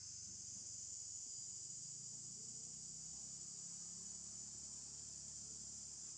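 Steady high-pitched drone of an insect chorus, unbroken throughout, over a faint low hum.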